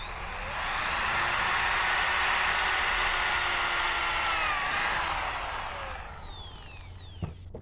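Corded electric drill boring a hole in wood: the motor spins up, runs steadily for about four seconds with a brief dip in pitch, then winds down with a falling whine. A single click near the end.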